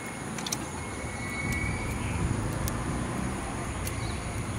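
Low steady rumble that swells a little after the first second or so, with a few small clicks and splashes as a tilapia is handled in a plastic bucket of water.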